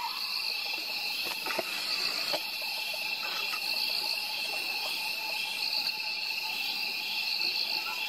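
Night-time chorus of crickets: steady, high-pitched trilling that pulses evenly, with no owl calls heard.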